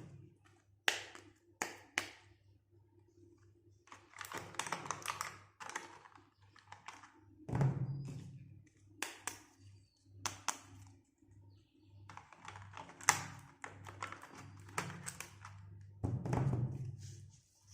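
Small plastic toy pieces being handled: scattered sharp taps and clicks, two stretches of rustling packaging, and a few soft thumps as pieces are set down, over a faint steady hum.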